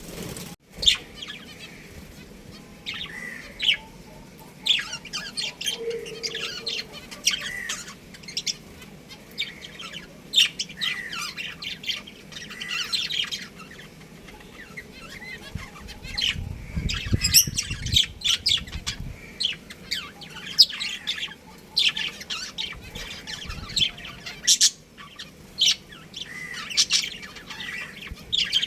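Budgerigars chirping in a steady run of short, high chirps and chatter, with a brief low rustle in the middle.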